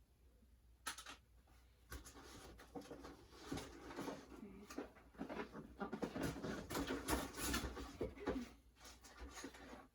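Faint rustling, tapping and clicking of hands handling a trading card and a plastic card holder. The sounds come in a dense run of small clicks from about two seconds in until near the end.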